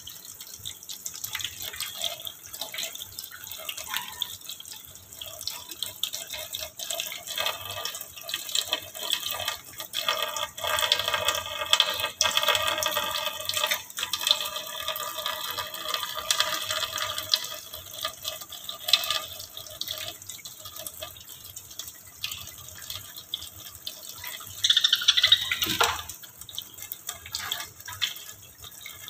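Kitchen tap water running and splashing onto a wire birdcage in a stainless-steel sink, with a constant patter of drips. Near the end, a brief squeak glides downward in pitch and stands out as the loudest sound.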